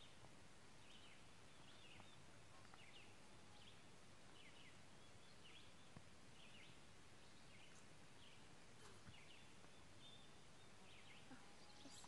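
Near silence with faint, short bird chirps repeating every second or so.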